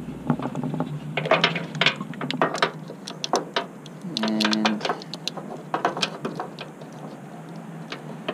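Irregular small clicks and rustles of hands handling wires and a plastic splice connector, fitting a wire into the connector at a taillight socket. A brief low hum about four seconds in.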